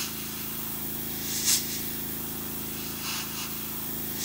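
Gravity-feed airbrush hissing as it sprays, with four short, stronger bursts of air as the trigger is worked, over a steady low hum.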